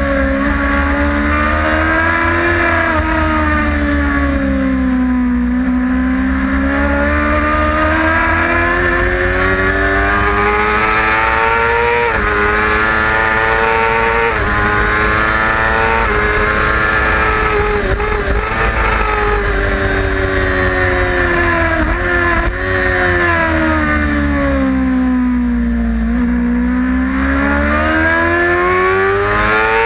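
Onboard sound of a racing sport motorcycle at race pace: the engine climbs in pitch under acceleration, drops abruptly at each upshift, and falls away while slowing for corners, over a constant low wind rumble on the microphone.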